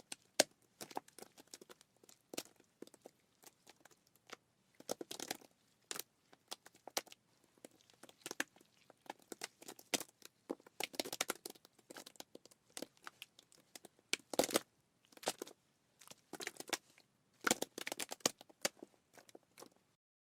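Wet crackling and squelching from a vomit sound effect: many short, sharp clicks and splutters at irregular intervals, bunching into denser bursts about 5, 11, 14 and 18 seconds in.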